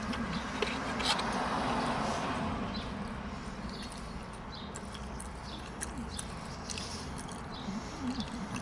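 A person biting into and chewing a crunchy breaded fried chicken tender: scattered crisp crunches over a steady background noise.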